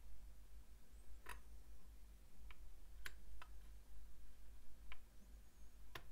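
Quiet room tone with a steady low hum and about six faint, irregularly spaced ticks.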